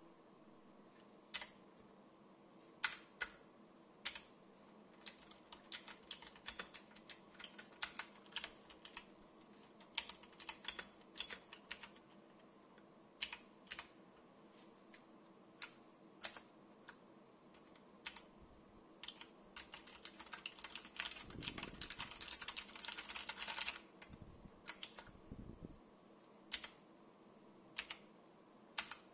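Clicky blue-switch keys of a Zienstar G696 60% mechanical keyboard being pressed: scattered single keypresses, with a quick burst of fast typing about twenty seconds in.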